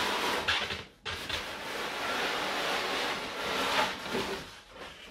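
White cardboard sleeve being slid up off a large cardboard model box: a long scraping rub of cardboard on cardboard, broken briefly about a second in and fading near the end.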